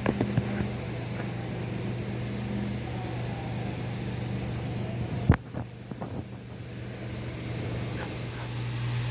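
A steady low mechanical hum with a few clicks near the start and one sharp knock about five seconds in.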